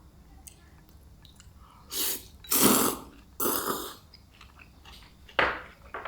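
A person eating a mouthful of braised stew with vermicelli close to the microphone: chewing, with a few loud, noisy mouth sounds two to four seconds in and another near the end.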